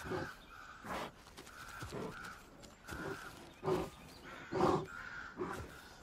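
A flock of ravens calling, a steady run of short croaks and caws about twice a second, two of them louder near the middle.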